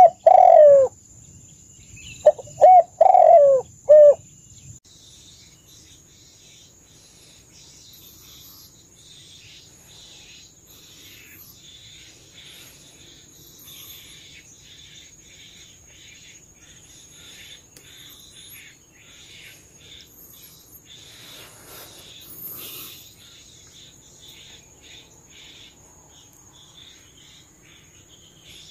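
Spotted dove cooing close by: one call at the very start, then four short notes about two to four seconds in. After that a steady high insect drone with faint scattered bird chirps.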